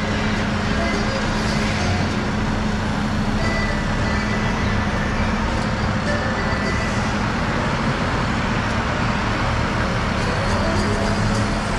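Vehicle engine running steadily, a continuous noise with a low hum and no breaks or sudden changes.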